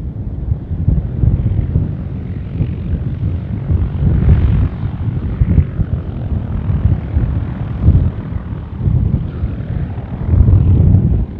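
Small pusher-propeller ultralight aircraft's engine running at low taxi power, an uneven low rumble as the aircraft taxis past.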